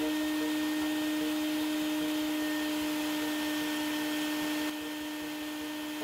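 Steady machine drone from the vacuum pump holding the bagged microwave oven under vacuum while the microwave runs, with one strong even hum. It drops a little in level and loses some hiss about three-quarters of the way through.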